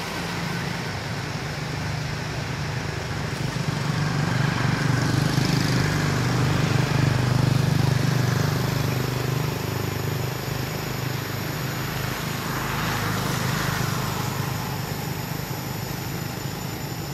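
A motor vehicle engine running steadily as it passes: it grows louder to a peak about halfway through, then slowly fades.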